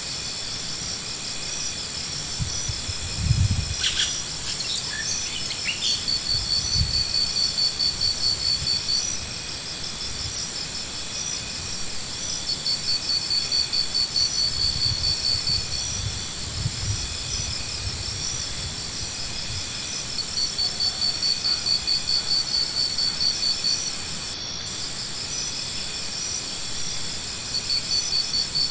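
Insects calling in rhythmic pulsed bouts lasting several seconds, over a steady high-pitched buzz. A brief louder thump comes about three seconds in.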